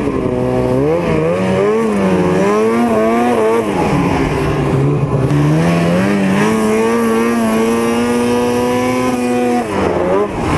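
Snowmobile engine under throttle while riding, its pitch rising and falling several times as the throttle is worked, then held steady at high revs for a few seconds. Near the end the revs drop sharply for a moment and then climb again.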